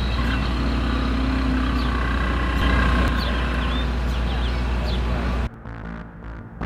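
Outdoor background noise with a steady low rumble like distant traffic or wind on the microphone, cutting off abruptly about five and a half seconds in, where music with a plucked guitar takes over.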